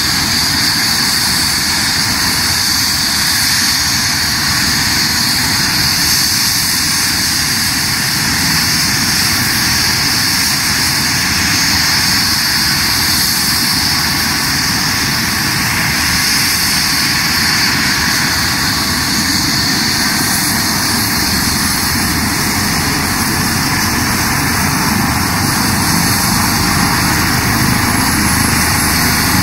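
Eurocopter EC135 air ambulance helicopter running on the ground, its turbine engines and rotor making a steady, loud whine and rush.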